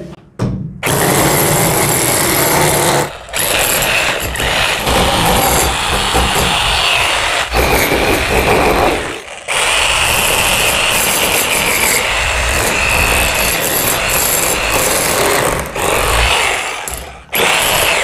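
Electric demolition breaker hammer with a flat chisel bit hammering into a plastered brick wall, chipping off plaster and brick. It runs loud and steady, stopping briefly and restarting three times.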